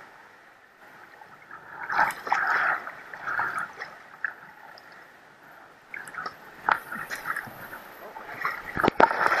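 River water gurgling and splashing against a kayak hull right by the microphone as the boat drifts through a shallow rapid. It comes in uneven surges, with the loudest, sharpest splashes near the end.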